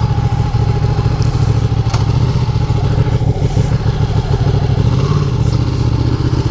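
Ducati Panigale motorcycle's L-twin engine running at a steady speed.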